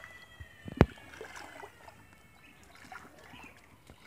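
Shallow muddy water splashing and sloshing around a man wading and working by hand, with one sharp slap or knock about a second in. A faint, high, drawn-out tone drifts slightly downward underneath.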